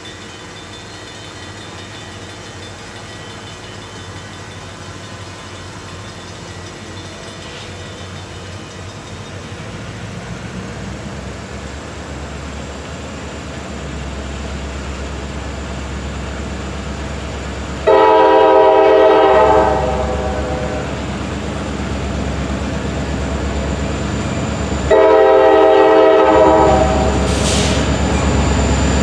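Approaching freight train led by two CSX diesel locomotives: the low engine rumble grows steadily louder as it nears. The lead locomotive's air horn sounds twice, a shorter blast past the middle and a longer one near the end, the loudest sounds here.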